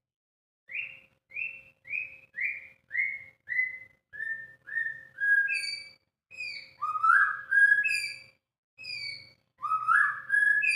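White-rumped shama (murai batu) singing: a row of about nine short whistled notes, each falling in pitch, about two a second, then more varied phrases with higher notes.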